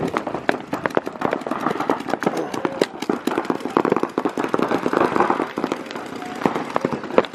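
Paintball markers firing in rapid, overlapping strings of shots, a dense irregular crackle of many pops each second, with paintballs breaking on bunkers.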